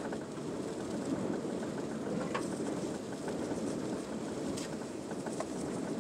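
Rain pattering on a car's roof and windshield, heard from inside the car as a steady patter with scattered sharper drop taps.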